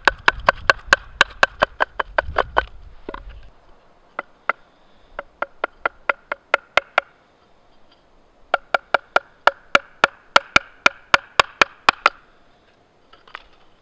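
Wooden baton tapping the spine of a knife driven into a wooden billet, chipping wood away. Quick, even knocks about four a second, thinning out and pausing midway, then another fast run of taps.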